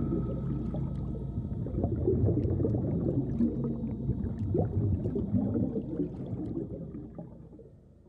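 Low underwater ambience of moving water, with small scattered ticks, fading away over the last couple of seconds.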